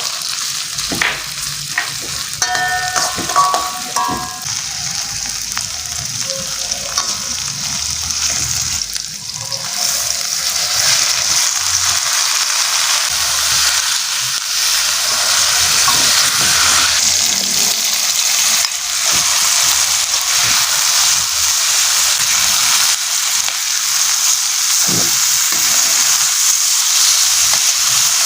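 Food sizzling in hot oil in a pan, with the scrapes and clicks of stirring. The sizzling gets louder about ten seconds in and then holds steady.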